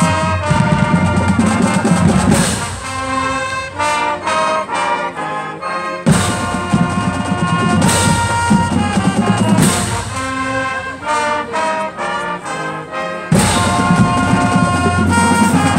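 Marching band playing live, with brass over bass drums and percussion. A phrase repeats, and after quieter stretches the full band comes back in loudly about six seconds in and again near the end.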